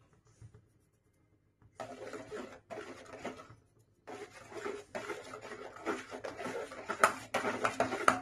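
Steel spatula stirring and scraping wet semolina against a stainless steel pot, mixing in turmeric. Silent at first, then scraping strokes from about two seconds in that become nearly continuous, with a few sharp clicks near the end.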